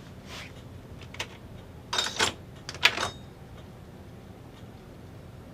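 A few short clicks and clattering knocks from the appliance's hardware being handled, the loudest a bit under three seconds in.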